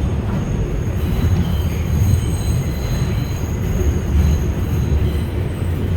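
R142 subway train running with a heavy low rumble of wheels on rail. From about a second in, a thin high steady squeal of wheel flanges rides over it as the train takes a curve, fading out near the end.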